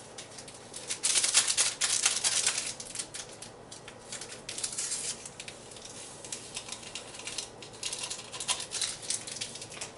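Crinkling and rustling of paper Truvia sweetener packets being handled and torn open over a coffee mug, loudest in the first couple of seconds, then lighter and on and off.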